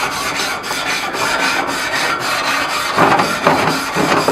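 Grill brush scrubbing the cast-iron grate of a gas grill in quick back-and-forth strokes, cleaning the grate.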